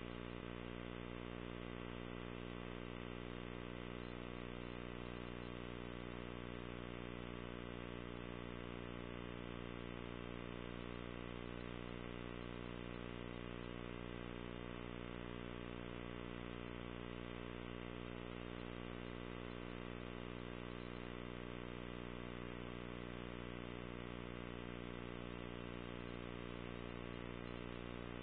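Steady electrical hum: one unchanging buzzing tone with many even overtones, holding at the same level and pitch throughout. No music or voice from the commercial comes through.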